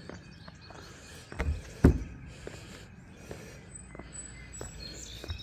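Footsteps on the weathered wooden ties of a steel railroad trestle, a series of light knocks with a heavier thump a little under two seconds in.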